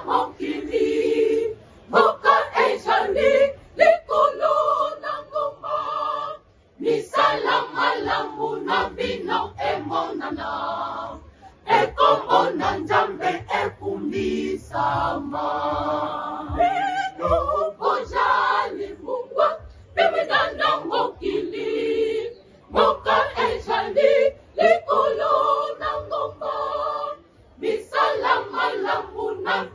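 Mixed choir of women and men singing together in phrases of about five seconds, with a brief pause between phrases.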